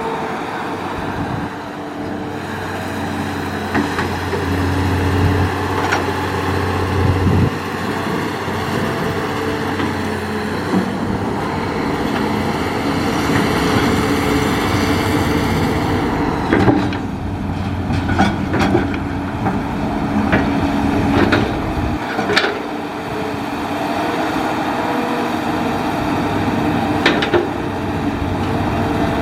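Hitachi hydraulic excavator's diesel engine running under working load, its pitch and load shifting as the arm and bucket move, with scattered clanks and knocks from the bucket and machine working through the rubbish.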